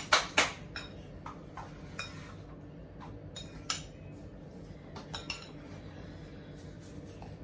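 Kitchen utensils clinking and knocking against a dish while chicken wings are tossed to coat them: a quick run of loud clinks at the start, then scattered lighter clicks over the next few seconds.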